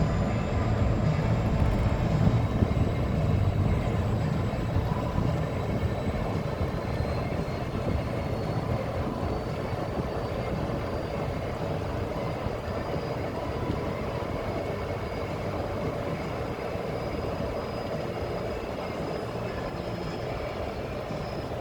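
A steady engine drone, heaviest in the low end, easing slightly over time, with a faint high whine that rises slowly in pitch.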